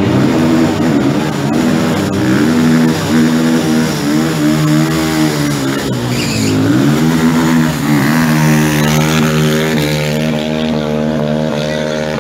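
Stunt motorcycle's engine revving hard, its pitch dipping and climbing again and again, then held high and steady for the last few seconds.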